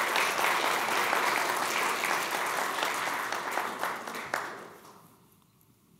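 Audience applauding, many hands clapping together, dying away between about four and five seconds in.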